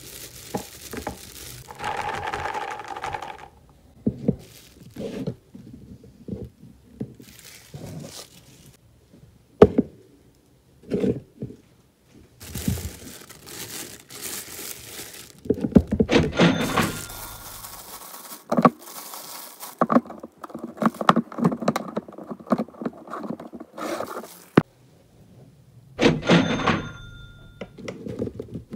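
Close-up food-prep handling sounds: raw peanuts poured from a plastic bag rattle into a plastic storage box, plastic bags crinkle, and produce and lids are set down in plastic containers with sharp knocks. The sounds come in bursts, the loudest knock about ten seconds in.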